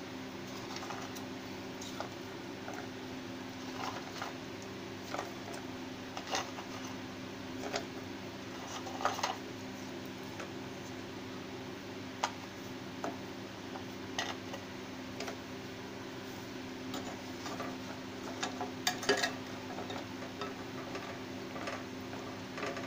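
Fried mathris dropped one at a time into hot sugar syrup in a kadhai, giving scattered light taps and clinks against the pan. A steady low hum runs underneath.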